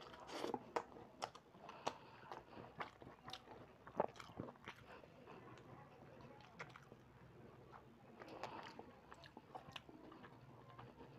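A man eating rice and chickpea-potato curry by hand and biting a ripe mango, chewing and smacking his lips close to a clip-on microphone. Irregular wet mouth clicks and smacks, the loudest about four seconds in.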